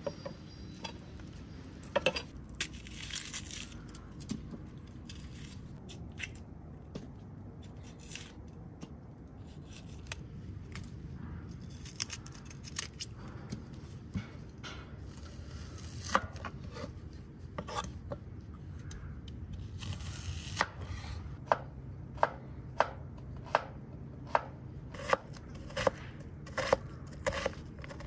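Kitchen knife cutting peeled white onions on a wooden cutting board. Scattered cuts and handling at first, then from about two-thirds of the way through a steady chop roughly every two-thirds of a second as the onion is diced.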